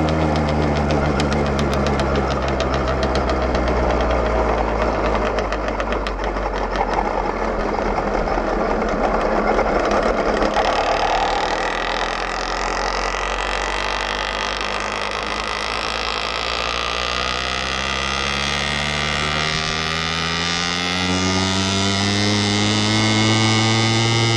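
AM6 two-stroke engine with a 49mm big-bore CNC cylinder, running under way on a motorized bicycle. Its pitch drops over the first few seconds as the bike slows, the sound turns rougher through the middle, then the pitch climbs steadily through the second half as it accelerates again.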